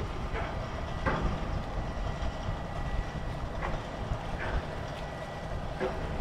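Steam-powered lake freighter passing close by: a steady low rumble from its machinery with a faint constant whine over it. A few short, sharp knocks come at irregular moments, the strongest right at the start and about a second in.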